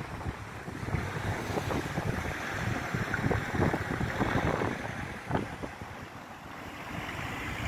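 Wind buffeting the microphone in uneven gusts, a rumbling rush that swells and fades, easing off a little after about five seconds.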